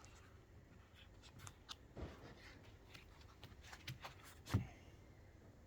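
Small handling noises from stubby screwdrivers being picked out of their foam tray: scattered light clicks and soft knocks, the loudest about four and a half seconds in.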